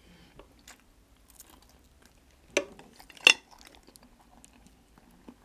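Close-miked mukbang eating sounds: scattered light clicks of food and utensils, with two sharp snaps a little under a second apart about halfway through.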